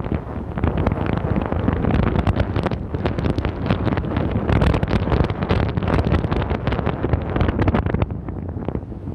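Heavy, rough wind noise buffeting the microphone over the low rumble of a car driving on a snowy road.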